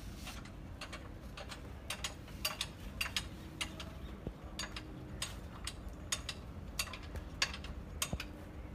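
Irregular sharp metallic clicks and clinks of hand tools and parts being worked on a Massey Ferguson 385 tractor engine under assembly, over a low background hum.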